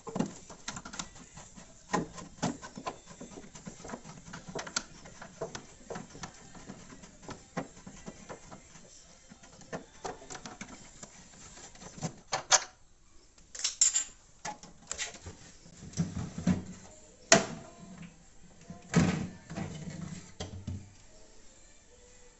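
Irregular clicks, taps and knocks of a screwdriver and plastic parts being handled as the screws and frame of a fridge's freezer door are taken off, with a busier run of louder knocks and dull thuds in the second half.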